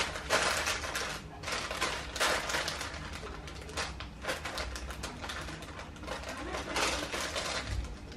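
Paper rustling and light irregular taps as cake slices are set one by one into a paper-lined plastic storage box.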